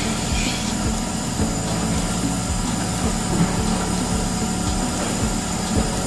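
Milking parlour machinery running: a steady hum from the vacuum pump with a regular low pulsing.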